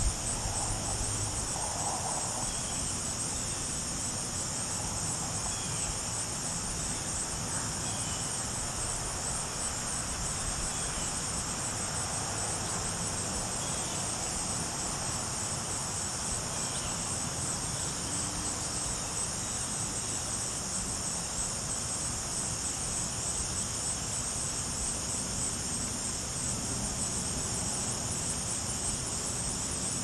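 Steady high-pitched chorus of insects, with a few faint short chirps every few seconds.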